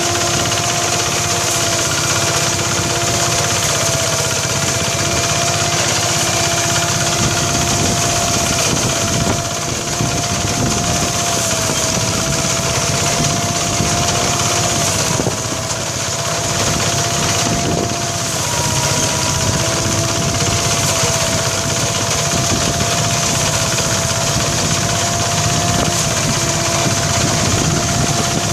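Engine-driven mini rice thresher running steadily, a loud mechanical drone with a high whine that dips briefly a few times.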